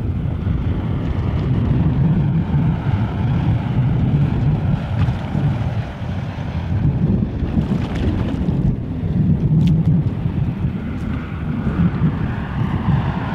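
Wind buffeting the microphone in a loud, gusting low rumble, over the wash of a flowing river, with a few faint ticks.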